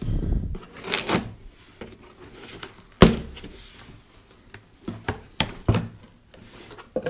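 Handling of a boxed package: rustling and knocking, a sharp thump about three seconds in, then a few short taps near the end.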